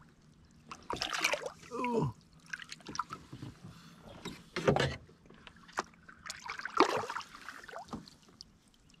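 Small splashes and water dripping and lapping beside a kayak as a largemouth bass is held in the water and released, with scattered light knocks at irregular moments.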